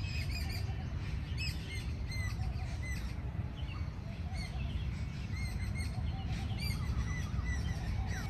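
Birds chirping: many short, high calls scattered throughout, over a steady low rumble.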